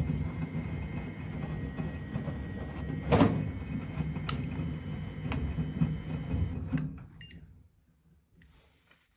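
Miele Novotronic W925 washing machine running, its drum rumbling under a thin steady motor whine, with one sharp knock about three seconds in; the running stops and dies away a little after seven seconds.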